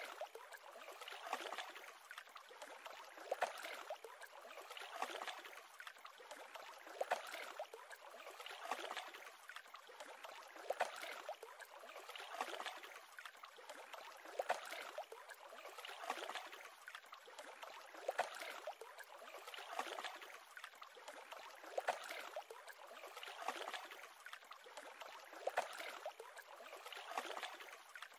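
Small waves lapping at the edge of a lake, with a soft splash about every two seconds over a steady wash of water.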